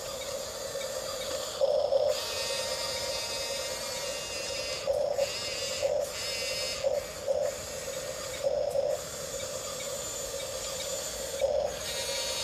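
Electric motors and plastic gearboxes of a Huina 1554 1/14-scale RC bulldozer whining steadily, with short louder bursts every second or two as the drives are worked.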